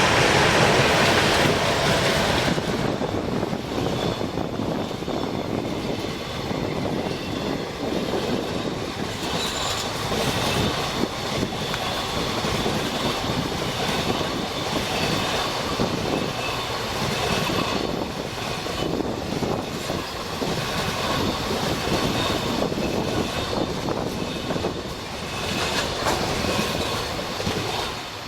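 Freight train of Class 18E electric locomotives and loaded wagons rolling past. The wheels clatter steadily over the rails, with a faint squeal, and it is loudest in the first couple of seconds.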